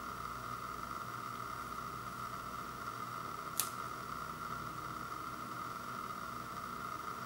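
A hard sourdough pretzel piece snapping once with a short, sharp crack about three and a half seconds in, over a steady background hiss.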